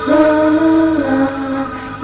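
Goth rock music: long, held, chant-like notes that step down in pitch about a second in.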